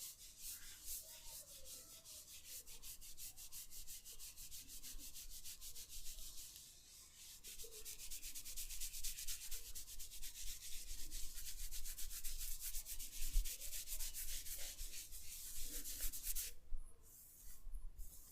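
Hands rubbing briskly in a head massage, in rapid, even strokes, with a short pause about seven seconds in and another near the end.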